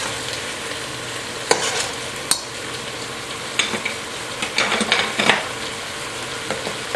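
Chicken drumsticks sizzling steadily as they brown in a stainless steel pot, most of the marinade liquid cooked off. Scattered sharp clicks of metal tongs against the pot as the pieces are turned, most of them a little past the middle.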